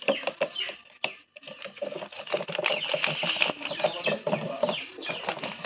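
A wooden stick scraping and knocking inside a plastic jar while scooping out thick milk cream, with many short sharp clicks, over birds calling in the background.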